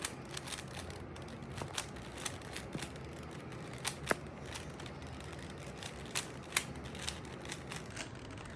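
3x3 Rubik's cube being turned by hand: a run of short, irregular plastic clicks as the layers are rotated.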